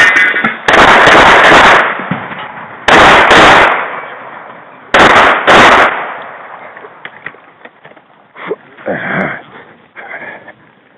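Pistol shots fired in a rapid string, loud enough to overload the recording: several shots in the first six seconds, coming in quick groups a second or so apart. The firing then stops, leaving faint small clicks.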